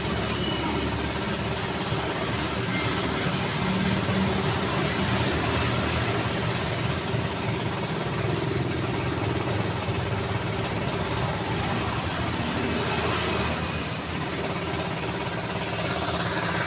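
City road traffic: a steady wash of passing vehicles' tyres and engines with a low engine rumble underneath.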